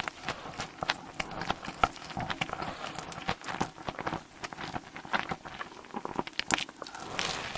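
Close-miked eating sounds: a person chewing with a dense run of quick wet smacks and clicks, with a longer rustling, sucking stretch near the end.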